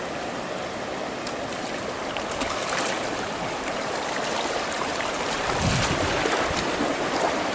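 Floodwater rushing steadily, growing a little louder past the middle, with a brief low rumble about six seconds in.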